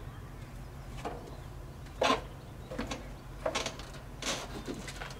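A string of short clanks and clicks, the loudest about two seconds in, from stepping down a travel trailer's entry steps and taking hold of its manual awning's metal support arm.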